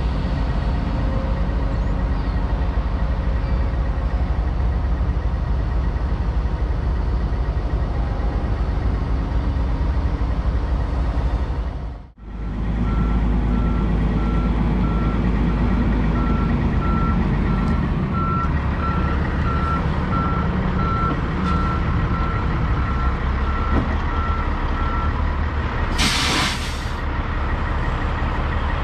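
Peterbilt semi tractor's diesel engine running with a heavy low rumble. Partway through, a reversing alarm beeps steadily at roughly one and a half beeps a second for about twelve seconds as the tractor backs up to the lowboy's gooseneck, then a short loud hiss of air near the end.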